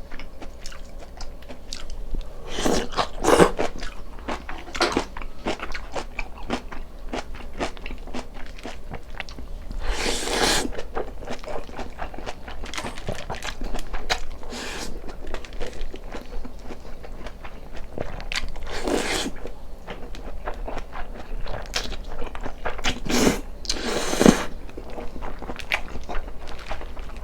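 Close-miked eating sounds: steady chewing and mouth clicks, broken by four louder noisy bursts of biting or slurping about 3, 10, 19 and 23 seconds in.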